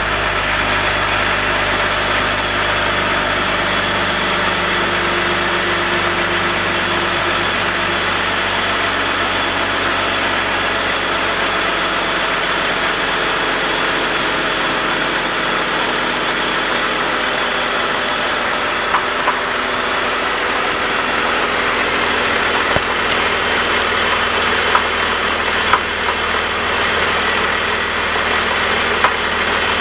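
BMW E46 330i's 3.0-litre inline-six idling steadily with a galloping, clanking noise that is there only at idle and goes away under acceleration; a new primary timing chain tensioner has not cured it. A few faint sharp clicks come in the second half.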